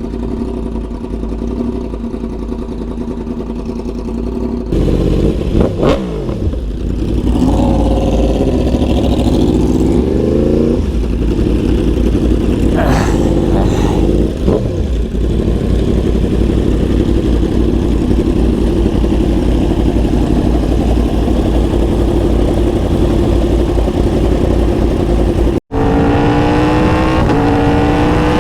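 Yamaha R1 sport bike's inline-four engine running steadily, then revving and accelerating with rising pitch through upshifts. It holds a long steady note, cuts out for an instant about 25 seconds in, then pulls through two more quick rising runs between shifts.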